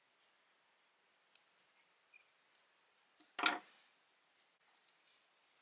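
A few faint snips of small craft scissors trimming a paper cut-out, then one louder knock about three and a half seconds in as the scissors are put down on the work surface.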